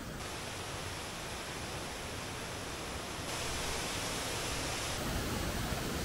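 Steady rush of a mountain stream's flowing water, getting louder about three seconds in.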